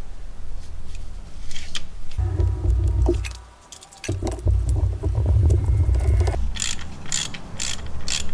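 Wrench work on a broken bolt with a weld on it, trying to back it out: low rumbling and knocking with metal clicks and clinks. A short lull comes partway through, then a quick run of sharp clicks near the end.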